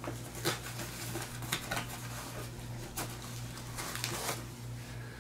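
Hands rummaging in a nylon backpack pouch: irregular rustling of fabric with light clicks and knocks of items being moved about inside, over a steady low hum.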